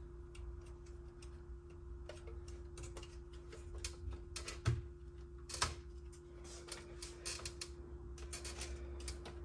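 Scattered light clicks and taps of parts being handled and fitted inside a Macintosh Plus during reassembly, with two louder knocks near the middle, over a steady low hum.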